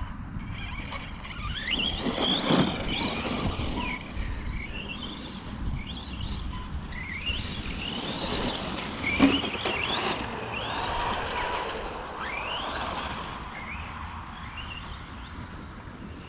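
Arrma Kraton 4S V2 RC truck's brushless electric motor whining in repeated rising sweeps as the throttle is pushed again and again, with a sharp thump a little after nine seconds in.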